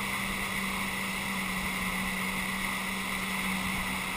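Jetski engine running at a steady pitch while towing at speed, with the rush of water churning in its wake.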